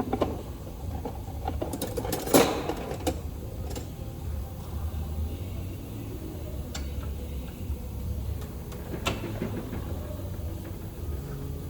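Steady low mechanical rumble with a few sharp metallic clicks and clanks of hand tools, the loudest about two seconds in.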